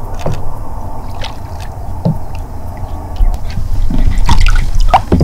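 Paddling a plastic sit-on-top kayak: paddle strokes in the water, small splashes and knocks against the hull over a steady low rumble. The knocks are busiest and loudest about four seconds in.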